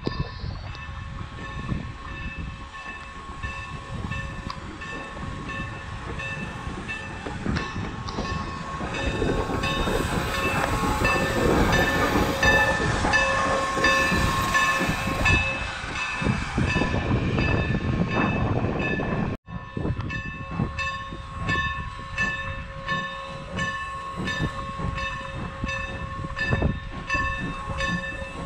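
Steam locomotive passing close by at low speed, loudest about halfway through, with its bell ringing over and over at an even pace. The sound drops out for an instant about two-thirds of the way in.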